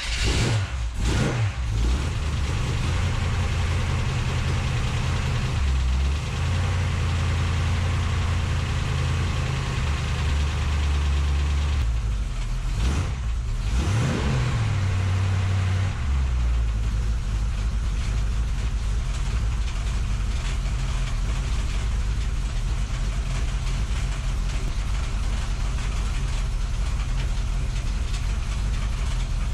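350 Chevrolet small-block V8 with a dual-plane intake manifold, revved briefly about a second in and again about 13 seconds in, then settling into a steady idle. The front bumper rattles from the engine's shaking.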